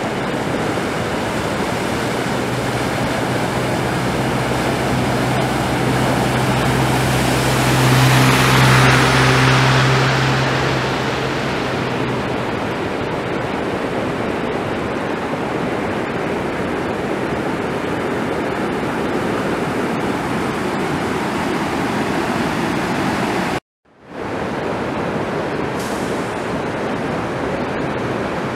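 Floodwater rushing steadily across a road. A pickup truck drives through the water, its engine hum and splashing swelling to a peak about eight to ten seconds in and fading by about twelve seconds. The sound cuts out for a moment about 24 seconds in.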